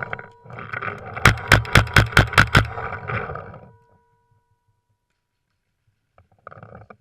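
Airsoft gun firing a rapid burst of about eight shots, starting a little over a second in, over a rustling haze that dies away after about three and a half seconds.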